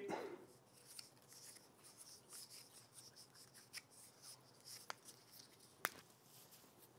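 Faint rubbing and crinkling of Teflon thread-seal tape being stretched and wound around the threads of a hose fitting, with a few light clicks, the sharpest about six seconds in.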